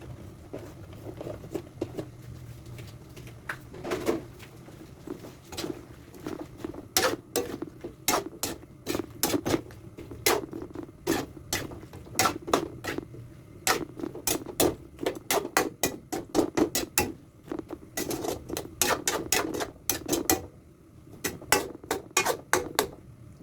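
Quick, irregular clinks and knocks in a cooking pot as young banana pieces are added to the coconut-milk stew. The clinks come several a second in runs, with a short pause near the end.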